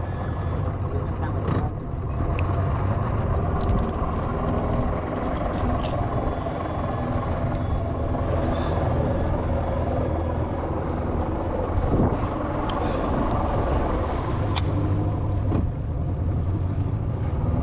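Small motorboat's engine running steadily as the boat cruises along.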